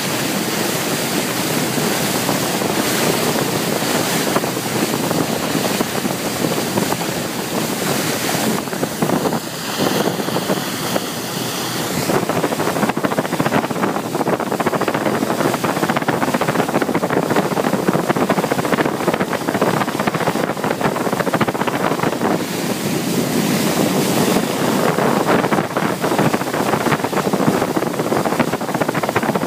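Steady rush of sea water along a boat's hull, mixed with wind buffeting the microphone, with a brief lull about ten seconds in.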